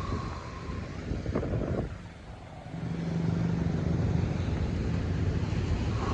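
A motor vehicle running: low rumbling with a few short knocks, then a steady low hum from about halfway through.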